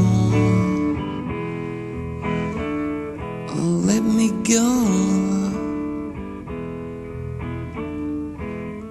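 Guitar-led 1960s rock song playing and fading out, its level falling steadily as the track nears its end.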